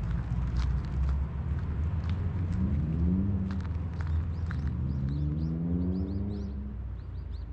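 A motor vehicle's engine running nearby under a low rumble, its pitch rising twice as it accelerates, as if shifting up a gear in between. Birds chirp repeatedly in the second half.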